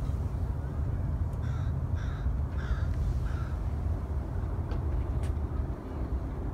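A crow cawing four times in quick succession, over a steady low rumble of wind on the microphone. A couple of faint clicks follow a little later.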